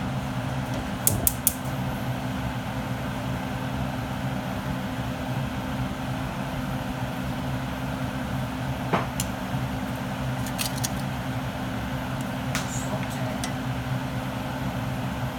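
A steady mechanical hum with a few sharp clicks over it: three in quick succession about a second in, then a handful more spread through the second half.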